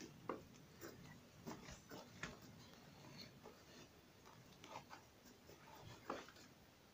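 Faint scattered rustles and scratchy handling sounds from a cloth and a Pyrenean Mastiff puppy being moved about on a lap, with a few louder soft knocks.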